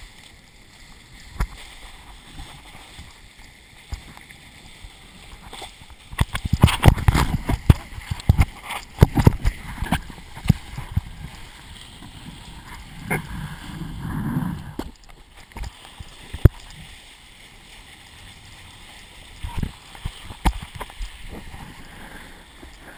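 Kiteboard skimming over choppy sea: the board slaps the chop again and again, with spray and wind noise between the hits. A dense run of hard, loud slaps comes about six to eleven seconds in, then a low rumbling surge shortly after.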